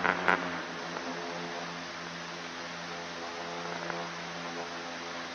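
Steady droning hum of a Turbo Commander turboprop's cockpit, an even layered tone over a hiss, with a brief sharp click near the start.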